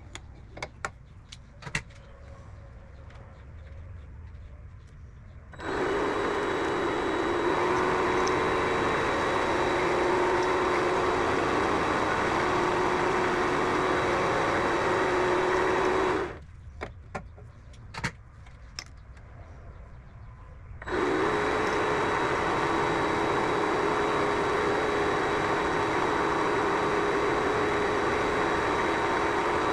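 Vevor mini lathe running steadily with a constant motor hum and whine. It is quiet twice, with a few sharp clicks while it is stopped, and starts up again about 5 seconds in and again about 21 seconds in.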